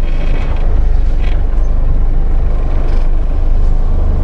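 Car engine running with a loud, steady low rumble.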